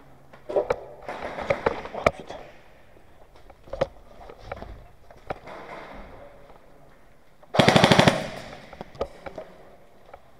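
Airsoft gun firing one short full-auto burst, about half a second of rapid evenly spaced shots, near the end. Scattered knocks and scuffs come before it.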